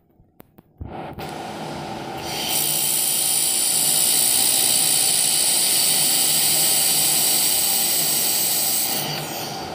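Handheld fiber laser welder with automatic wire feed running a weld: a steady machine hum starts about a second in, then a loud, steady, high-pitched hiss comes in about two seconds in and lasts about six and a half seconds before dropping away.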